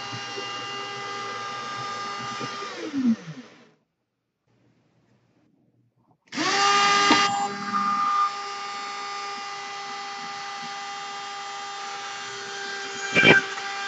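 Electric rotary tool with a flexible-shaft extension, running with a steady high whine. About three seconds in it spins down and stops. After a gap of silence it starts up again about six seconds in, the pitch quickly rising to speed, and keeps running. A sharp knock comes near the end.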